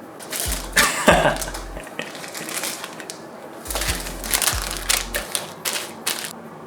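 Rustling and crinkling with sharp clicks and low knocks, in two spells of a couple of seconds each: snack packaging being handled.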